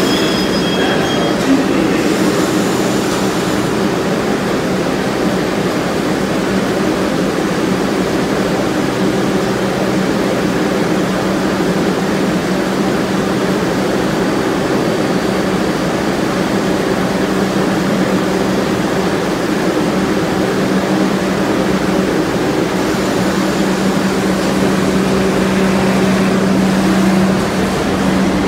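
New York City Subway R62 train running past along the station track: a continuous rumble of steel wheels on the rails under a steady low hum.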